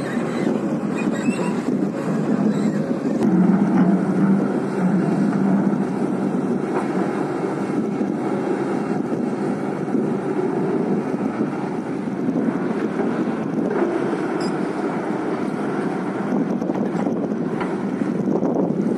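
Heavy diesel engines running steadily: a loaded tipper truck driving off, then an XCMG crawler excavator's engine working under load as it digs, with a steady hum that grows stronger a few seconds in.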